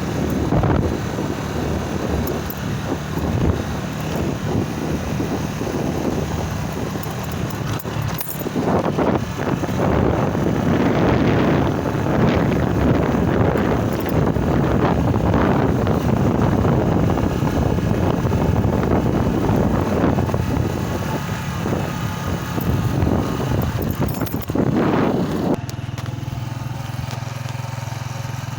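A small vehicle engine running under rough, noisy buffeting, as when riding over an uneven track. About 25 seconds in it settles to a steady, even hum.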